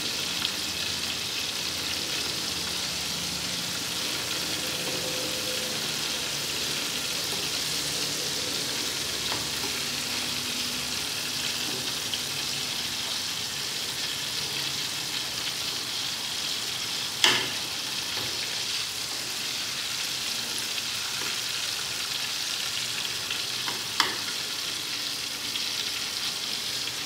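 Battered chicken strips deep-frying in hot oil in a turkey-fryer pot, a steady bubbling sizzle. Two short sharp clicks come through it, one a little past the middle and one near the end.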